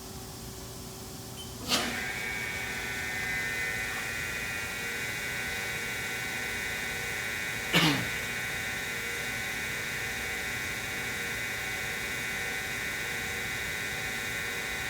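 Haas SL-40L CNC lathe running: a steady machine hum, then a sharp click about two seconds in, after which a steady high whine of several tones sets in and holds. A second sharp clunk comes about eight seconds in.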